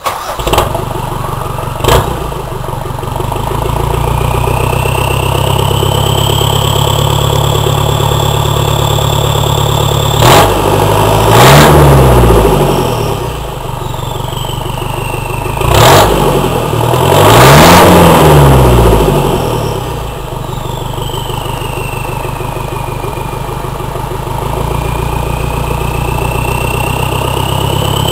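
An engine starting, then running steadily and revved up and back down twice. A high thin whine slides up and down above it.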